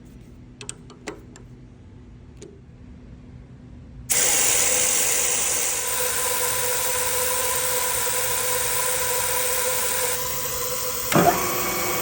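A few light clicks, then about four seconds in a manual milling machine starts up and runs steadily with a hum and the hiss of mist coolant spraying, drilling tap-size holes for 8-32 bolts. A short louder burst comes near the end.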